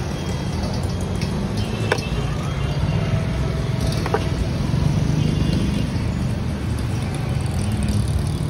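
Street traffic noise with a motor vehicle engine rumbling nearby, and two sharp clicks about two and four seconds in.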